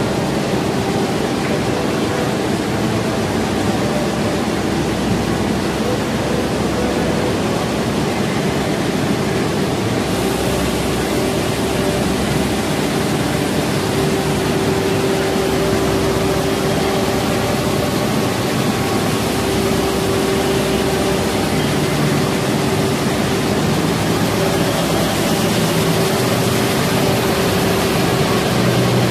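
Comforter quilting production line running: a loud, steady, even machinery noise of the fibre-web section and the high-speed multi-needle quilting machine, with a faint steady hum under it.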